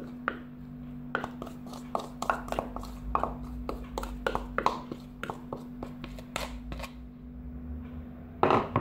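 Wooden spoon scraping and tapping against plastic mixing bowls as chopped parsley is scraped from one bowl into another: irregular light knocks, over a steady low hum.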